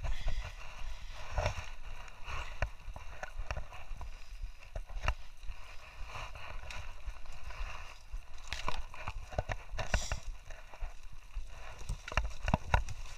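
Footsteps crunching on dry dirt, leaves and twigs in an irregular walking rhythm, with the rustle of dry brush.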